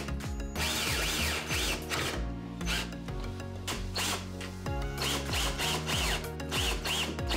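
Background music over a Ryobi cordless drill driving screws through a dishwasher's top mounting brackets into the wood under the countertop; the drill runs in two spells.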